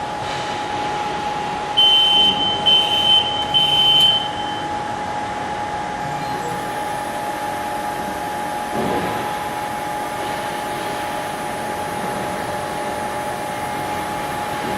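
WDS-620 BGA rework station running with a steady fan hum and a constant tone, its buzzer giving three short high beeps about two seconds in.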